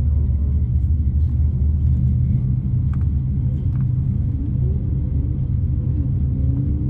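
Turbocharged 4.3-litre Vortec V6 idling, heard as a steady low rumble inside the truck's cab while it creeps forward.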